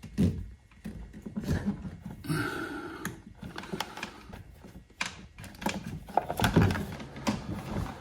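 Irregular light clicks, taps and knocks of hands working with small parts and wiring, such as kill-switch wire connectors being handled.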